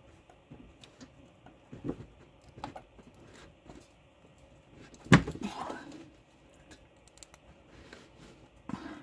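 Irregular clicks and knocks of hand-tool work on a car's sway bar end link. About five seconds in there is one loud metallic clank that rings briefly, and a smaller knock comes near the end.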